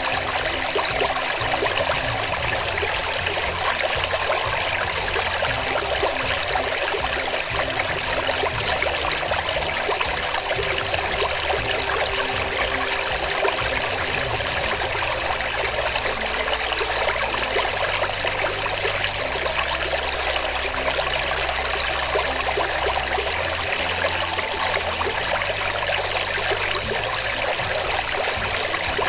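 Steady running water, like a trickling stream, with no breaks. Beneath it a faint low hum shifts in pitch now and then.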